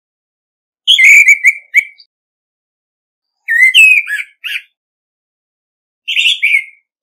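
Male orange-headed thrush singing its territorial challenge song: three short whistled phrases of varied, sliding notes, each under about a second and a half, spaced about two and a half seconds apart.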